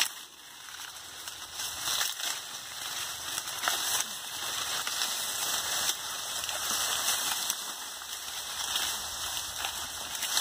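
Dry sugarcane leaves rustling and crackling as someone pushes through the cane and rummages close to the ground, a steady dry hiss dotted with small snaps.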